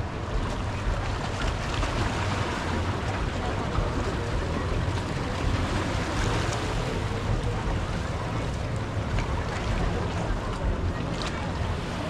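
Ocean surf washing onto a beach, with wind buffeting the microphone as a steady low rumble.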